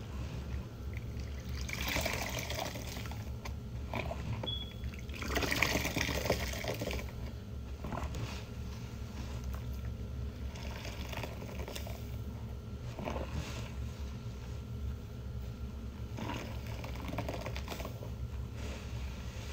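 Soapy water in a sink splashing and swishing as a hand churns it, then a scrubbing pad worked through thick suds, with several louder swishes, the loudest about six seconds in.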